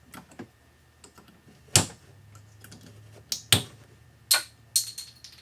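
Hook tool clicking and tapping against the wiper arm's parts as it is worked in: several sharp, irregular clicks, the loudest about two seconds in and a cluster between three and five seconds.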